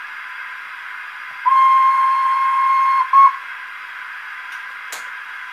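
Steam-train departure whistle sound on a model railway: one long steady blast of about a second and a half, then a short second blast, over a steady hiss. A sharp click near the end.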